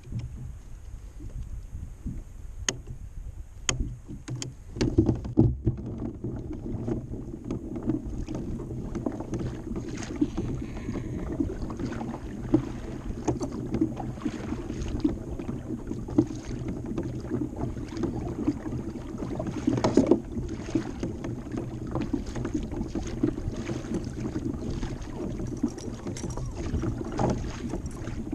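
Water lapping against a kayak hull, with short knocks and rattles of gear being handled on board.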